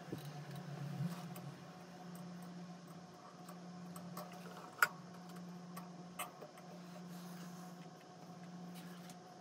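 Quiet room tone with a low steady hum and a few faint, sharp clicks and taps, the loudest about five seconds in and another about a second later.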